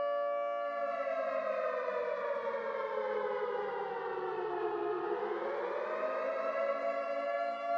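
Siren sounding a long wail: a steady tone that, about a second in, slides slowly down in pitch, bottoms out about five seconds in, then climbs back up and holds steady. It is the signal for the curfew.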